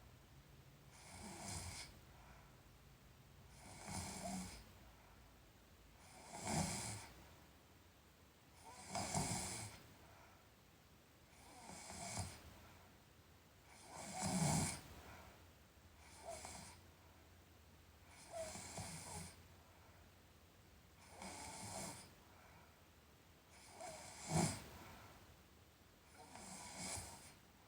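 A sleeping person snoring in a steady rhythm, about one snore every two and a half seconds.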